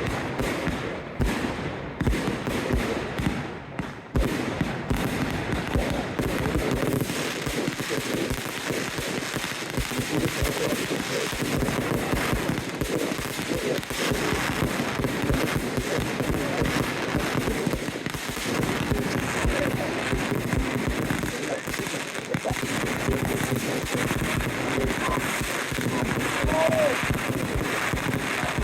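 Fireworks display: a dense, continuous barrage of bangs and crackling bursts, with voices in the crowd underneath.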